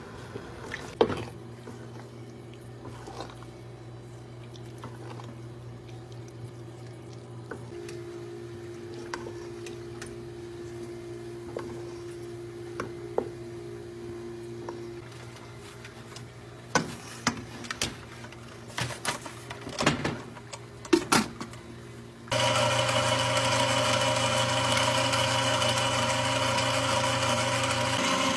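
Knocks and clatter of kitchenware being handled over a low steady hum. About 22 seconds in, an electric mixer's motor switches on and runs steadily, beating the cooked jareesh.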